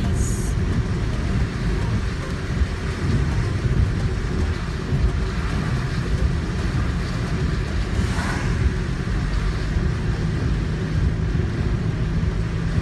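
Steady in-cabin road and engine noise of a car driving on a wet road in heavy rain: a low rumble with tyre hiss. A brief swish about eight seconds in.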